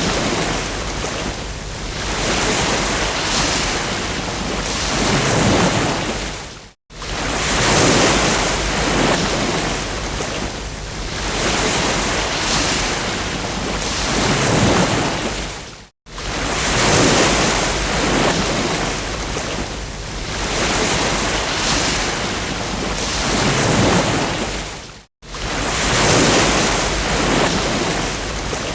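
Ocean waves breaking and washing on a beach, the surf swelling and easing every few seconds. Three times, about nine seconds apart, the sound cuts out for an instant and starts again.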